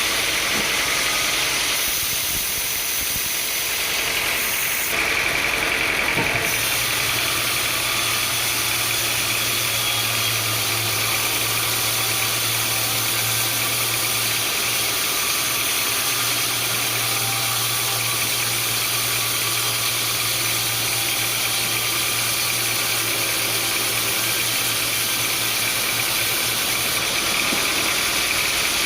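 Sawmill machinery running steadily, an engine-like drone with a low steady hum that comes in about six seconds in and drops out near the end.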